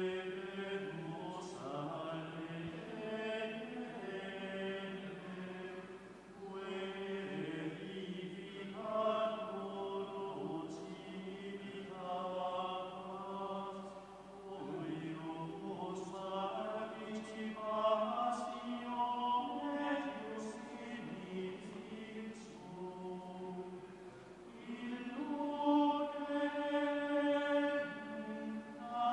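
Voices singing a slow liturgical chant in long held notes, phrase by phrase with short pauses between phrases.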